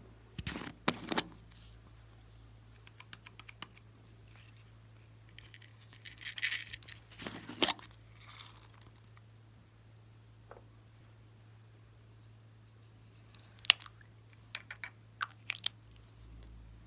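Glossy slime being handled and mixed by hand: scattered sticky clicks and crackles, a longer crackling stretch in the middle, and a quick run of sharp clicks near the end.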